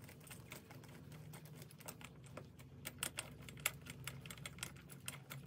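Small ratchet wrench clicking in quick, irregular runs as the 10 mm head bolts of a two-stroke engine's cylinder head are tightened down.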